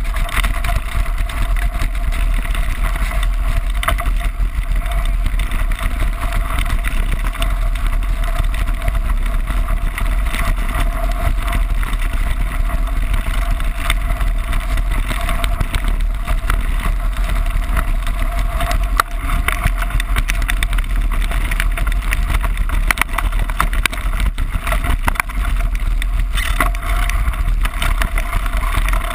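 Wind buffeting an action camera's microphone on a mountain bike riding fast down a gravel track, over the steady rush of knobby tyres on loose gravel and a constant patter of rattling clicks from the bike and the camera mount.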